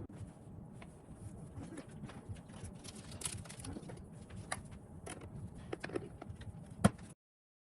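Scattered clicks and light knocks of objects being handled, with one louder knock near the end, after which the sound cuts off abruptly.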